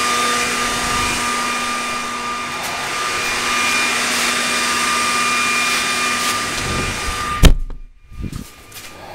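A blower running steadily with a whine, pushing air through a clothes dryer vent duct to clear out lint. About seven and a half seconds in there is one loud thump, after which the blower's noise drops away sharply.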